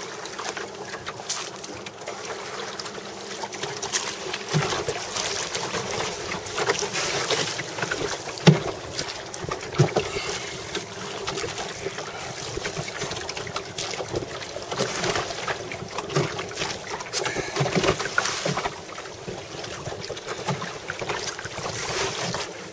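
Wooden Hankins surf rowboat under oars on choppy sea: water washing along the hull and wind on the microphone, with occasional knocks and clatters, the loudest about eight seconds in.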